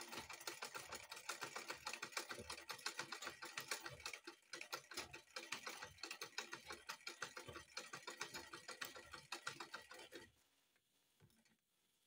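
Manual black-head sewing machine stitching an invisible zipper onto fabric, a fast, even clicking of the needle mechanism that stops about ten seconds in.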